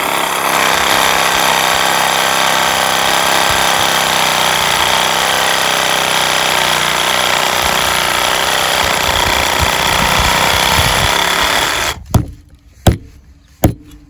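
Reciprocating saw cutting through a tree branch, running steadily for about twelve seconds before it stops. Then three sharp hatchet chops into a log, less than a second apart.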